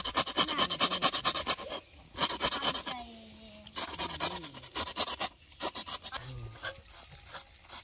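Rapid, rough rasping strokes of hands scrubbing a wet piece of raw tripe with coarse meal over a metal bowl of water. The strokes thin out later, as a knife scrapes the tripe near the end.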